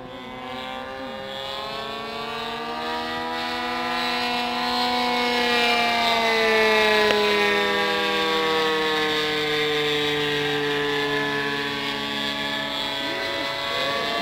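A 31cc Ryobi two-stroke engine turning a 16x8 three-blade propeller on a large radio-controlled model plane, droning steadily in flight. It grows louder toward the middle as the plane comes closer, and its pitch slowly rises and then falls.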